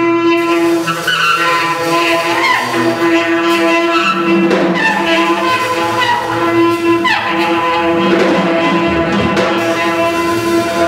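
Live small-group jazz: a saxophone holds a long steady note over drums and electric bass, with gliding lines from the other instruments woven around it.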